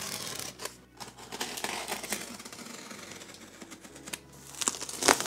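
Box cutter slicing through packing tape and cardboard on a shipping box: a scratchy cutting noise for a couple of seconds, then a few light clicks near the end.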